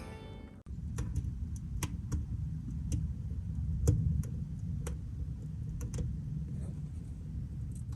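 A low steady rumble with a dozen or so scattered, irregular light clicks and taps. Background music cuts off about half a second in.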